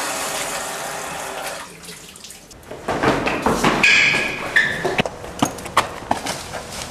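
Water running from a tap into a washbasin, fading out about two seconds in. Then a glass door in a metal frame is pushed and rattled, with repeated knocks and clatters.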